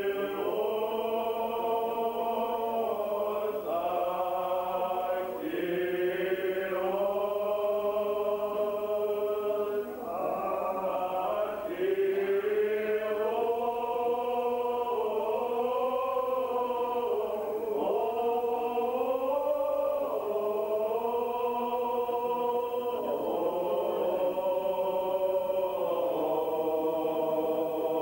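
Choir singing a slow Old Believer liturgical chant, with long drawn-out notes that slide from pitch to pitch and short breaks between phrases.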